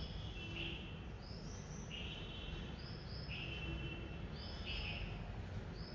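Faint bird chirps: short notes at two alternating pitches, repeating about every half second to second over a low steady hum.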